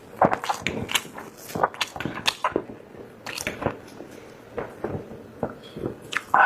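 Mouth-eating sounds of braised chicken drumsticks being bitten and chewed: a run of short, irregular clicks and smacks.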